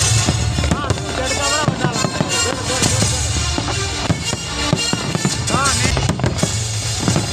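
A fireworks display firing bang after bang in quick succession, with crackling and a low rumble, over music playing underneath.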